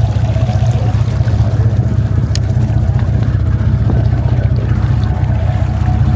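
Sportfishing boat's engine running steadily as a low drone, with a single sharp click about two seconds in.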